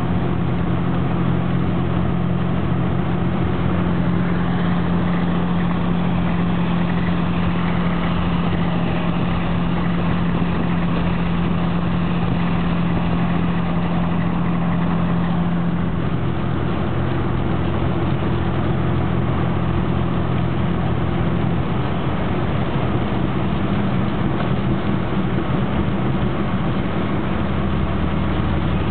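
A car's engine and road noise heard from inside the cabin: a steady low hum over an even hiss, the hum shifting in pitch about halfway through and again near the end.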